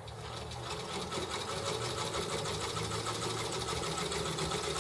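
Electric sewing machine running, stitching a hem through heavy sling-chair fabric with rapid, even needle strokes; it gets up to speed over the first second and then runs steadily.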